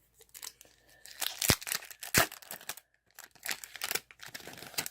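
Foil trading-card pack wrapper being torn open and crinkled by hand, with two sharp snaps of the wrapper about one and a half and two seconds in.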